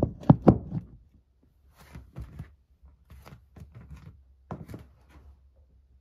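A run of knocks and thuds: two loud ones close together just after the start, then lighter, irregular knocks for about five seconds before it goes still.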